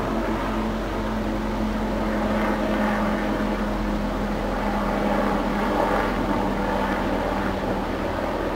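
Hughes 500 turbine helicopter flying nearby: a steady drone of rotor and engine with a held hum that drops away near the end.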